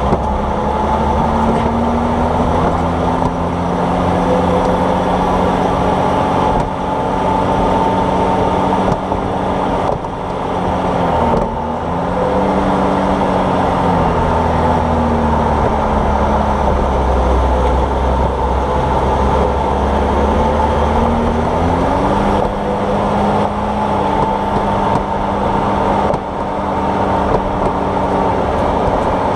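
Car being driven, heard from beside a wheel's shock absorber: loud road and tyre noise with an engine or drivetrain hum whose pitch dips about twelve seconds in and climbs again later, with a few faint knocks from the suspension, which is being checked for a clunk.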